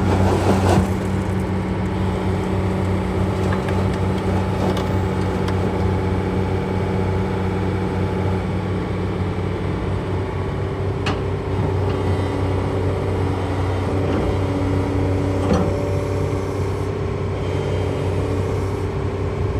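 Terex TXC140 excavator's diesel engine running steadily, its tone shifting about halfway through, with a few short knocks.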